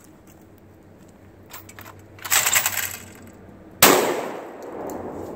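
A single shot from a Lynx 12 AK-pattern 12-gauge shotgun firing birdshot, a sharp report about four seconds in with its echo trailing off over more than a second. About a second before the shot there is a loud rustling noise lasting under a second.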